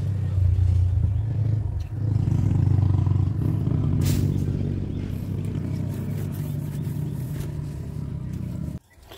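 A motor running with a steady low hum, dipping briefly about two seconds in, easing off slowly and cutting off suddenly near the end.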